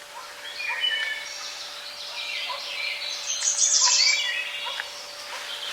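Several songbirds singing and calling over one another, with a louder, higher song about three and a half seconds in.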